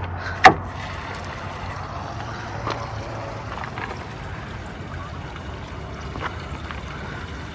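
RV black tank draining: waste water flowing steadily through the sewer hose just after the dump valve is pulled open. A single sharp knock about half a second in.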